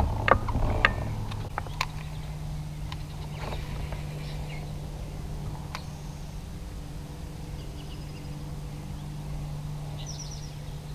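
Kayak moving along calm water with a steady low hum, a few light clicks and knocks in the first two seconds, and a bird chirping briefly near the end.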